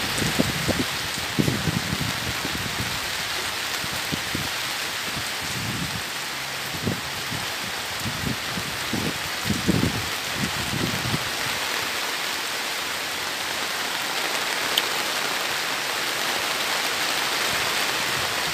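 Steady background hiss, with scattered low knocks and rattles of the combine harvester reel's metal tines being handled, clustered about 1.5 seconds in and between about 6 and 11 seconds in.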